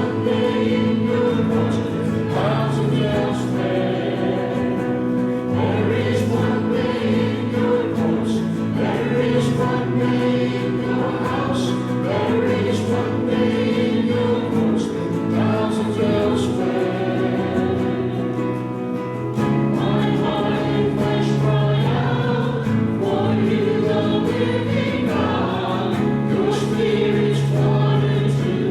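Group of voices singing a hymn together with instrumental accompaniment, held chords over low notes that change every few seconds.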